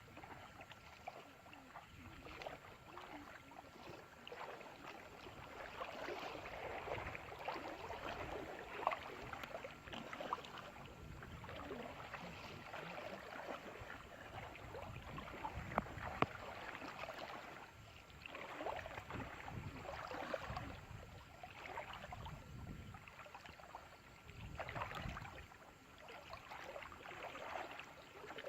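Water sloshing and splashing in uneven swells, with a couple of sharp knocks.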